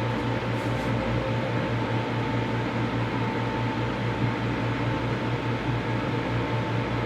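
Microwave oven running: a steady low hum over fan noise, with no change in level.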